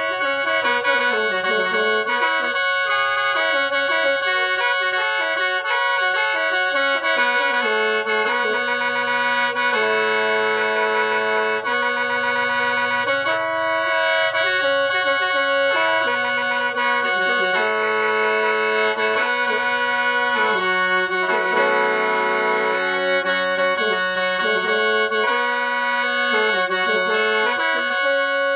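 Khaen, the Lao bamboo free-reed mouth organ, played solo without a break: a steady high drone note held under a melody of lower notes that step up and down.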